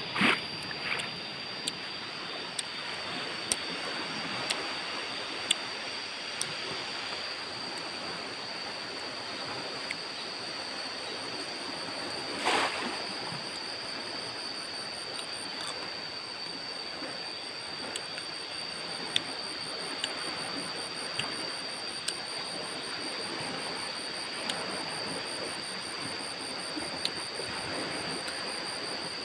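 Steady rush of a fast-flowing river, with a constant high thin whine over it and one short louder noise about twelve seconds in.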